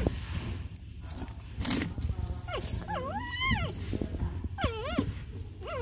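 Young puppies whimpering: a long whine that rises and falls about two and a half seconds in, then two shorter cries near the end.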